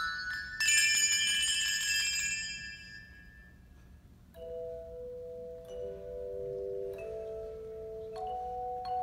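Handbell choir ringing: a bright, high chord struck about half a second in rings out and dies away, then after a short lull lower bells sound in slow, held notes.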